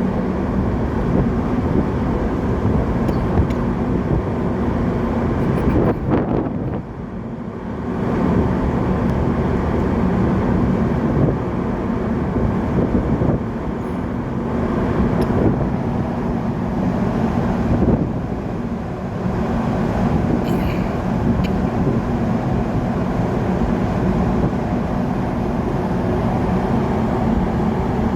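Steady low drone of a large container ship under way, a constant hum under a wash of noise, dipping briefly about six seconds in.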